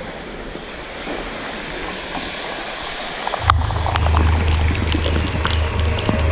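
Steady rush of a waterfall with spray. About three and a half seconds in, a loud low rumble of wind and spray buffeting the microphone comes in as the kayak nears the falls, with scattered ticks of falling drops.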